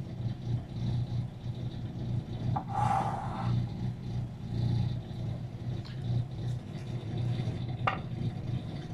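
A steady low mechanical hum with a slow pulsing beat, with a short higher tone about three seconds in and a click near the end.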